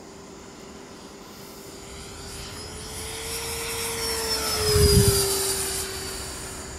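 Freewing T-45 electric ducted-fan RC jet flying past. The fan's whine grows louder, is loudest about five seconds in, and drops in pitch as the jet goes by.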